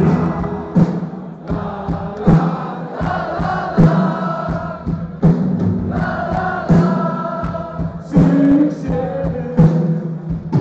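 Loud music with a heavy drum beat about every second and a half, and a crowd singing or chanting along.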